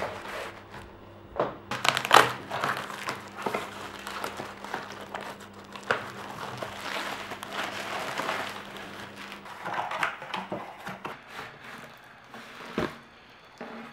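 Packaging being handled close by, crinkling and rustling, with irregular taps and knocks of objects being set down or moved.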